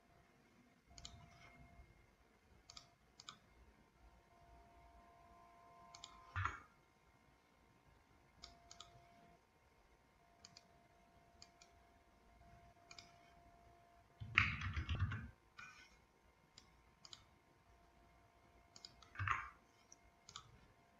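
Faint, scattered computer mouse clicks and keyboard taps. A louder noise lasting about a second comes a little past halfway, with shorter ones about a third of the way in and near the end.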